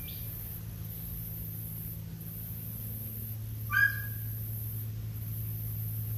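A single short, high animal yelp about four seconds in, over a steady low mechanical hum.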